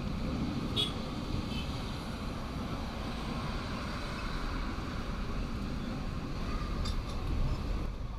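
Steady rumble and rattle of a heritage steam train's carriage rolling along the rails, with a couple of brief high clicks, about a second in and again near the end.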